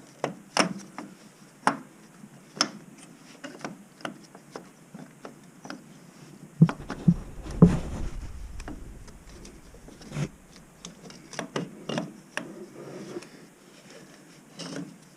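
Scattered clicks and knocks of metal parts and hand tools being handled as the starter motor is lifted out of the ATV engine, with a cluster of louder thuds about seven to eight seconds in.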